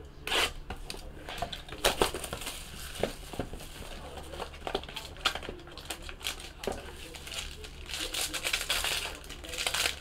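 A small cardboard trading-card box being handled and opened by hand, with scattered taps and scrapes. From about three-quarters of the way in, the plastic-and-foil wrapping of the pack inside crinkles.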